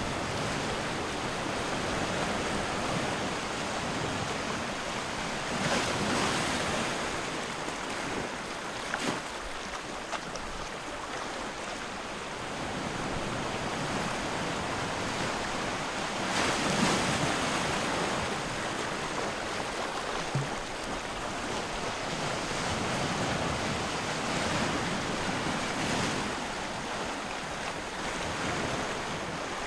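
Surf: small waves breaking and washing up a beach, a steady rush of water that swells and falls back several times.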